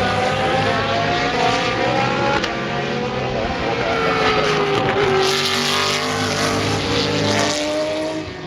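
Several racing car engines running hard at once, their overlapping notes gliding down and up in pitch as the cars pass and change gear.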